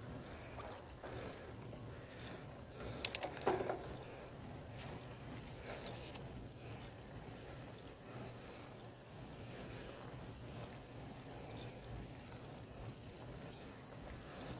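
Faint steady insect chorus, high thin buzzing from the roadside vegetation, over a low steady rumble from the bicycle ride. A few sharp clicks come about three seconds in.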